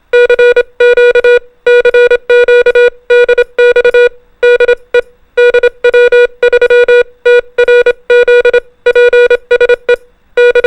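Morse code sent as a single steady mid-pitched beep keyed on and off, short dots and longer dashes run together in groups with brief pauses between them.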